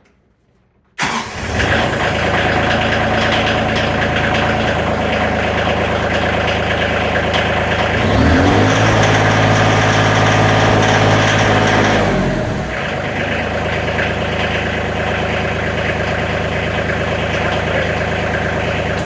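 Tractor engine starting about a second in and then running steadily. About eight seconds in it is revved higher on the throttle for a few seconds, then drops back to idle. It is running on a newly fitted fuel shutoff solenoid and sounds like it is getting more fuel: smoother and more responsive on the throttle.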